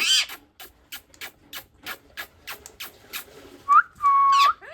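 Pet parrot whistling: a short call, then a long note that slides up and holds steady near the end. Between the two come a series of sharp clicks, about three a second.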